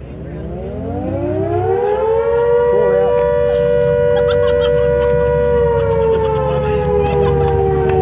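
Mechanical siren winding up, its pitch rising over about two seconds into a loud, steady wail of two close tones, then sagging slightly near the end before cutting off suddenly.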